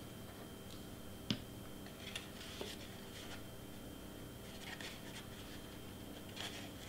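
Hands handling a folded cardstock piece, with soft, brief rustles and scrapes of paper as a glued tab is pressed into place, and one sharp tap about a second in.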